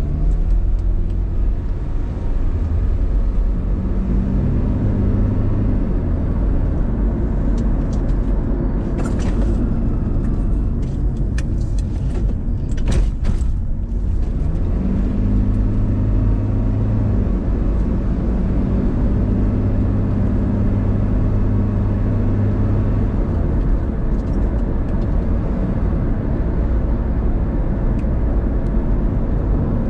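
Car on the move: steady low rumble of engine and road noise, with a low engine hum that holds for a few seconds, fades and returns. A few sharp clicks or rattles near the middle.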